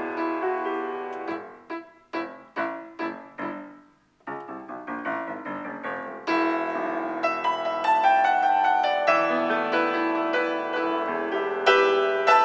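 Improvised piano playing. Separate struck chords ring and die away, there is a brief pause about four seconds in, then quick repeated notes build into fuller, sustained playing.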